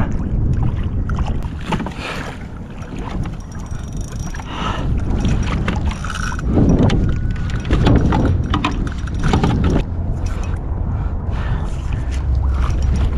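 Wind rumbling on the microphone over water lapping and splashing against a plastic kayak hull, with scattered light knocks.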